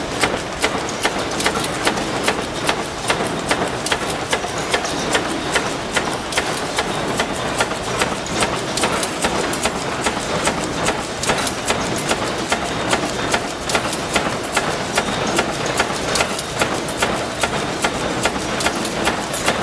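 Mechanical punch press stamping steel strip into perforated drawer slide rails: a steady run of sharp metal strikes, a few each second, over the continuous running noise of the machine.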